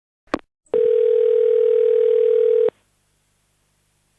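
Telephone ringback tone heard down the line while an outgoing call rings, before the hotel answers. A click, then one steady two-second ring with a slight warble, a pause, and the next ring starting near the end.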